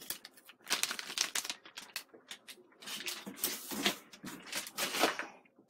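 Plastic packaging bags crinkled and rustled by hand in quick, irregular spurts as they are gathered up.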